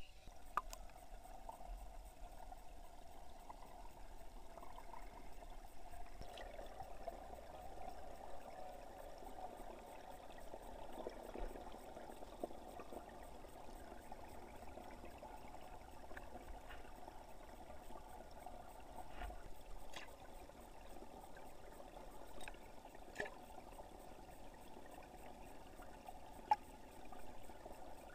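Water heard through an underwater camera: a faint, steady, muffled rush of moving water, with a few sharp little clicks now and then.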